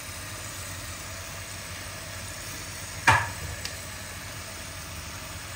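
A sharp knock on a pressure cooker pot about three seconds in, with a lighter click half a second later, over a steady low hum.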